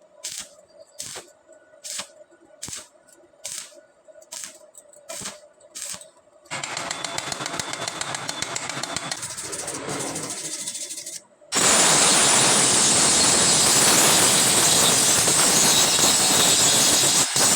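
Electric arc welding on hollow iron tube: a dense, steady crackle of the arc starts about six seconds in and grows much louder from about eleven seconds on. Before that there are regular ticks, about one every 0.8 s.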